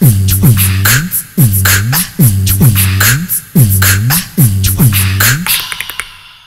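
Background music: a steady electronic hip-hop style beat with a deep kick that drops in pitch and crisp hi-hat ticks. The beat thins out and fades away near the end.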